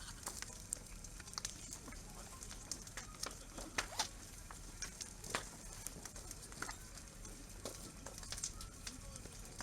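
Wood bonfire crackling, with irregular sharp pops from the burning logs.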